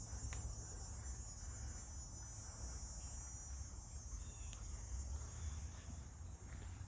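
A steady, high chorus of insects, crickets by the sound, trilling without a break, over a low rumble and a couple of faint clicks.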